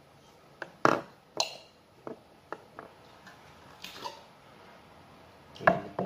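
Hard plastic knocks and clicks as PVC pipe fittings and tools are picked up and set down. There are about eight separate strikes at uneven intervals, the loudest a little under a second in and another just before the end.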